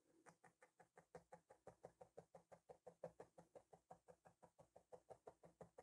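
Felting needle stabbing repeatedly through red wool into the felting mat: faint, quick, steady tapping at about seven strokes a second, compacting the wool during a felting pass.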